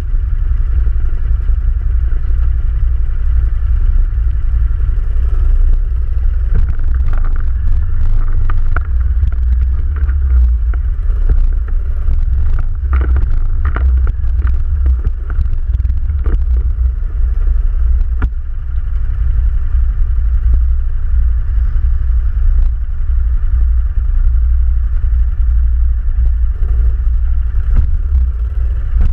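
ATV engine running steadily while the quad is ridden over a rough trail, with scattered knocks and rattles from bumps, most of them in the middle stretch.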